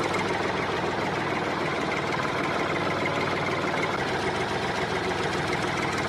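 Small motor of a DIY miniature tractor running steadily with a fast, even rattle.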